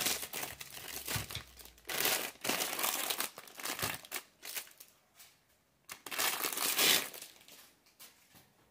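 Clear plastic packaging crinkling as it is handled and unwrapped from rice cooker accessories. It comes in spells: near the start, again from about two to three and a half seconds in, and loudest around six to seven seconds, with quieter rustling in between.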